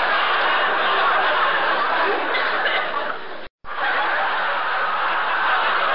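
Canned laughter from a crowd, many people chuckling and chattering at once. It drops out for a moment about three and a half seconds in, then starts again.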